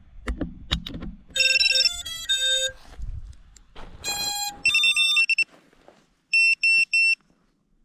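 Electronic start-up tones from FPV drone gear, most likely the ESCs chirping through the motors as a fresh battery is plugged in: a few clicks of handling, then short melodic tone sequences and three short identical beeps near the end.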